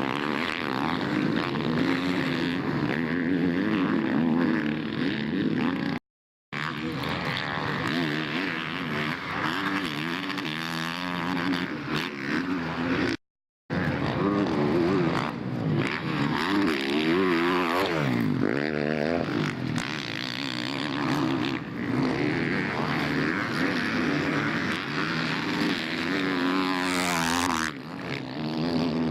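Motocross motorcycles racing, several engines revving up and down with pitch sweeps as bikes pass. The sound cuts out completely twice for a moment.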